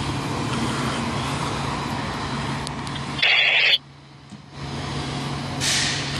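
Fire apparatus and street traffic with a steady engine hum. There is a short loud blast about three seconds in, a brief drop where the clip cuts, and a hiss that swells near the end.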